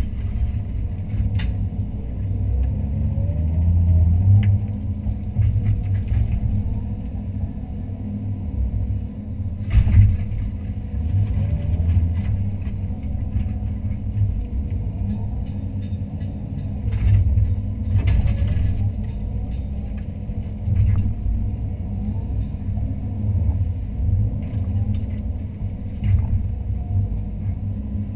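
Daewoo Solar 130-V excavator's diesel engine running steadily under load, heard from inside the cab as the hydraulics work the bucket through soil, its pitch rising and falling now and then. A few knocks from the bucket and boom, the loudest about ten seconds in.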